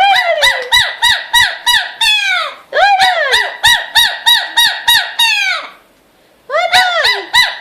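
Pet parrot calling in a rapid, even run of short, loud, arching squawks, about four a second, excited after a rain bath. The calls break off briefly about two and a half seconds in, stop near six seconds, and start again half a second later.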